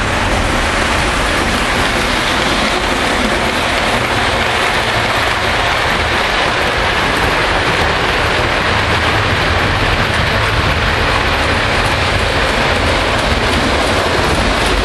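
Lionel O gauge model trains running on the layout's track, a steady loud rumble with no break.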